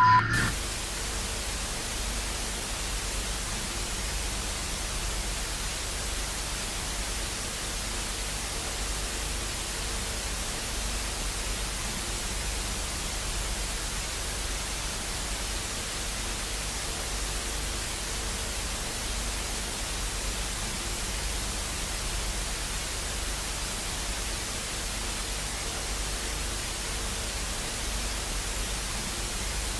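Steady hiss of analog television static (no-signal snow), unchanging throughout, with a faint low hum beneath it.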